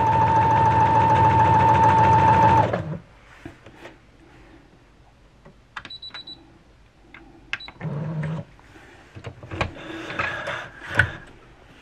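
Brother XR9550 computerized sewing machine running a straight stitch at a steady speed with a high motor whine, stopping about three seconds in. After it stops, a button is pressed with two short high beeps, the machine gives a brief whir, and near the end the fabric rustles and clicks as it is drawn out from under the presser foot.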